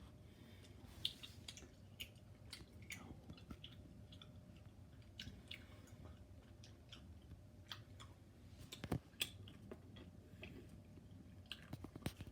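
Faint gum chewing close to the microphone: soft, irregular mouth clicks and smacks with quiet gaps between them, a little louder about a second in, around nine seconds in and near the end.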